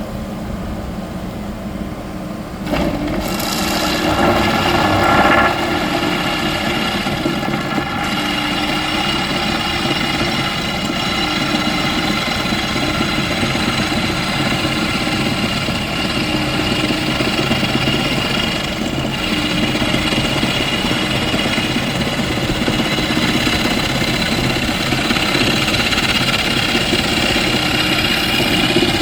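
A 50 mm hydraulic rock drill running steadily, a continuous machine drone with engine-like tones. It gets louder about three seconds in and then holds steady.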